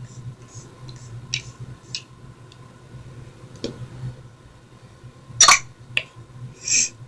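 Small clicks and handling noises of objects being picked up and set down, with a sharp louder click about five and a half seconds in and a short hiss just before the end, over a steady low hum.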